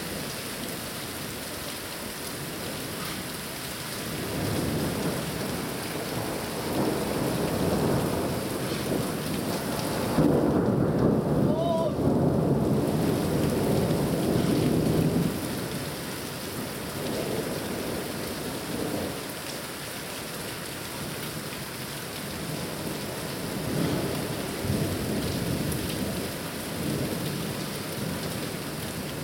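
Steady rain with rolling thunder from a thunderstorm. Low rumbles swell and fade, and the loudest, longest peal comes about ten seconds in and rumbles on for some five seconds.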